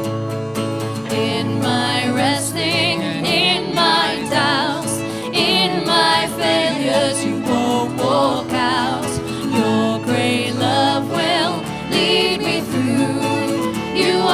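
Music: a Christian worship song, with a wavering sung melody over steady instrumental backing.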